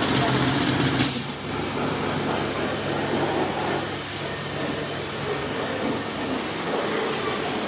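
Steady mechanical din and hiss of a car workshop, with a low hum at first and a single sharp knock about a second in.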